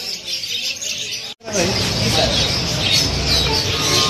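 Many caged birds chirping at once in a dense, continuous twittering. About a second and a half in the sound cuts out for an instant and comes back as a louder market din, with the chirping still going and voices mixed in.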